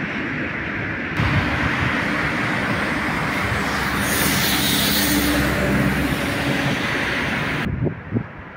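Steady outdoor noise of rail and road vehicles, with a brighter hissing stretch in the middle. It changes abruptly twice and drops to a much quieter background near the end.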